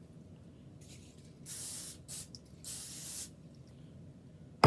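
Aerosol cooking spray hissing in two short bursts of about half a second each, then a sharp knock right at the end.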